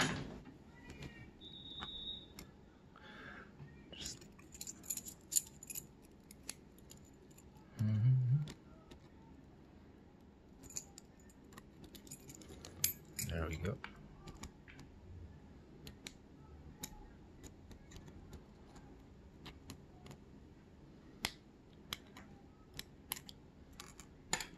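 Small metallic clicks and clinks of a brass pin tumbler lock cylinder being handled: its C-clip being worked off and keys on a ring jingling. A short, dull, low sound comes about eight seconds in.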